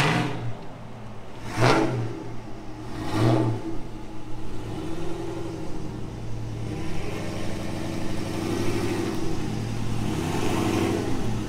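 Pickup truck with Speed Engineering headers and a full Corsa exhaust dumped at the ends with no tips, blipping its throttle three times about a second and a half apart. It then drives up and past, the engine's exhaust note rising and falling and growing louder near the end.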